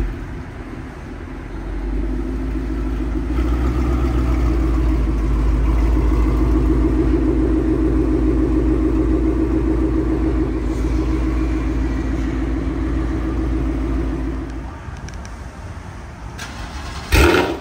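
Ford Mustang GT 5.0 V8 with long-tube headers, Corsa Sport axle-back and a double H pipe, idling steadily just after starting; the exhaust note grows louder after a couple of seconds and falls away near the end. Just before the end, another Mustang V8 starts with a short, loud flare.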